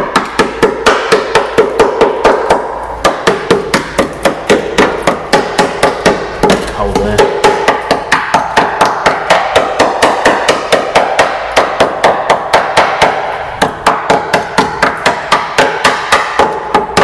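Small hammer tapping rapidly along the rusted steel sill of a Mk1 Mazda MX-5, about four blows a second with a metallic ring. It is testing whether the hammer goes through the rotten sill and its old filler-covered patch repair.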